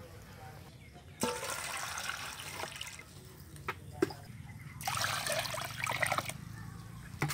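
Water poured from a plastic dipper into a steel basin of small scaled fish to rinse them, in two pours of about a second and a half each. A few short knocks come between the pours and near the end.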